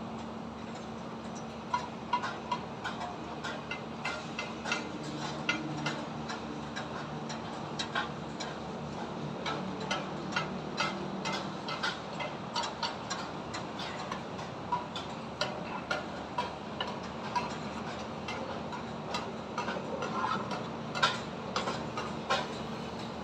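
High-rise construction site sounds: irregular sharp knocks and taps, sometimes several a second, over a steady low machine hum and a background haze of noise. The loudest knock comes near the end.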